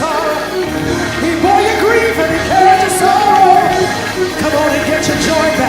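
Church worship music with singing voices, sustained without a break.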